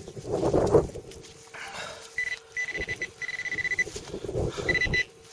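Gloved hands scraping and rummaging through loose soil in a freshly dug hole, then a metal detector's high, steady electronic beep sounding on and off from about two seconds in, the alert for a metal target in the soil.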